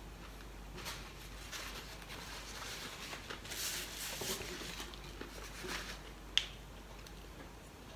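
Faint eating sounds of fingers working rice on a plate and chewing. A paper napkin rustles across the mouth about halfway through, and a single sharp click follows near the end.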